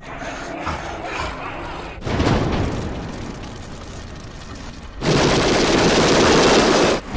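Trailer sound effects: a heavy hit about two seconds in that dies away, then a very loud two-second burst of automatic gunfire that cuts off abruptly.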